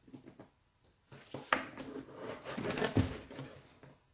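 A knife scraping and cutting at a cardboard parcel box: irregular scrapes, with two sharper knocks about one and a half and three seconds in.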